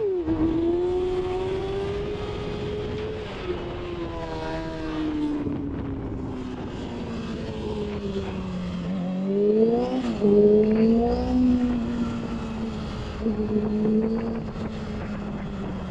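Yamaha YZF-R6 inline-four running on the road. Its pitch slides slowly down over several seconds as the bike rolls off, then the revs climb sharply about two-thirds of the way through and hold steady, with wind rushing over the microphone.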